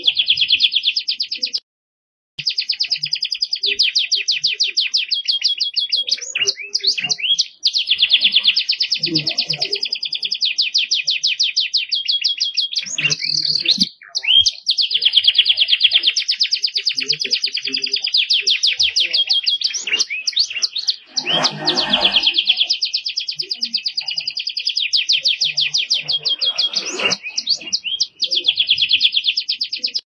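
Domestic canary singing a long, rapid trilling song: runs of fast repeated notes in varied phrases, breaking off briefly about two seconds in, a few times in the middle and again near the end.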